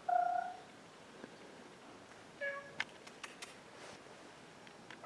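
Domestic cat meowing twice: a short, level meow at the start and a second, slightly lower one about two and a half seconds in. A few light clicks follow the second meow.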